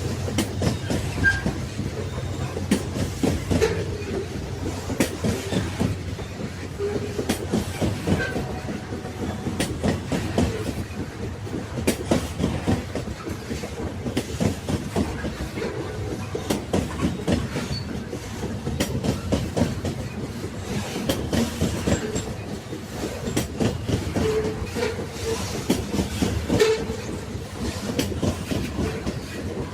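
Railway carriages rolling on the track: a steady rumble with a constant, irregular clatter of wheels over the rails, and a few brief squeaks near the end.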